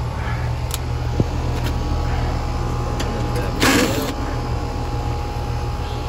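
Steady low hum of outdoor air-conditioner condensing units running, with a faint steady tone above it. A short scuffing noise comes a little past halfway.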